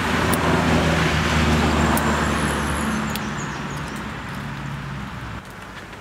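A motor vehicle's engine hums steadily with road noise, loudest in the first few seconds and fading away after about five seconds.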